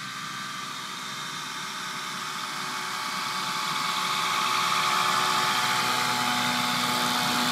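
Rotax 503 two-stroke engine of a Raven ultralight running at low power as the plane taxis on grass toward the listener and past, getting steadily louder over the first five seconds and then holding.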